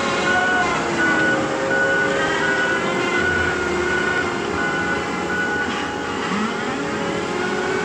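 Diesel engine of a piece of heavy earthmoving equipment running under load, with its backup alarm beeping steadily about once or twice a second while the machine reverses; the beeping stops about two-thirds of the way through, and the engine then revs up.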